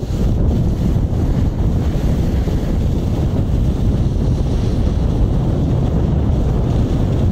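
Wind buffeting the camera microphone as the camera moves downhill on the slopes, a loud, steady low rumble.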